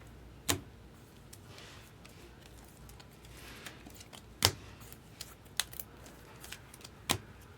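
Trading cards being handled on a table: three sharp taps or clicks, about half a second in, in the middle and near the end, with a few lighter clicks and soft sliding rustles between them.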